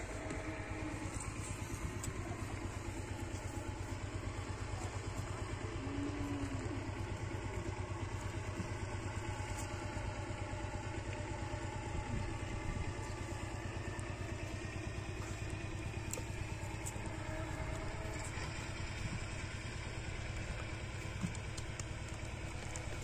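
An engine running steadily at idle, with a fast, even low throb.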